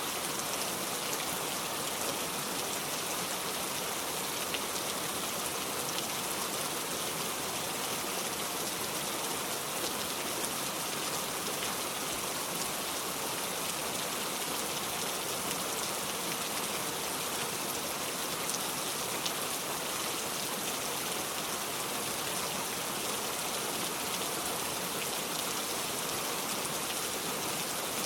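Steady heavy rain falling, an even hiss of rain with fine scattered drop ticks.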